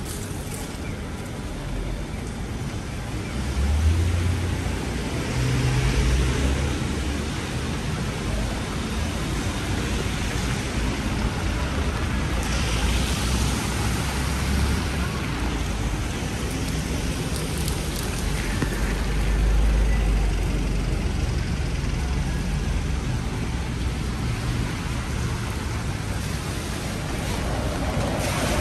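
City traffic in heavy rain: cars driving past on a wet road, swelling into a low rumble a few times as vehicles go by, over a steady wash of rain.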